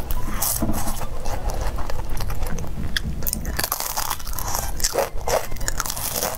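Biting and chewing of crisp fried pastry: a run of crunches into a deep-fried cherry pie's blistered crust, in several clusters with chewing between them.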